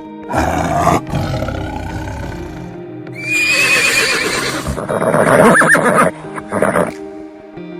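Horse neighing, a few separate whinnies with a wavering pitch, over steady background music.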